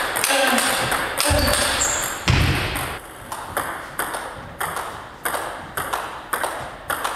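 Table tennis rally, a push exchange: the celluloid ball clicks off the paddles and the table about twice a second, with two low thuds in the first half.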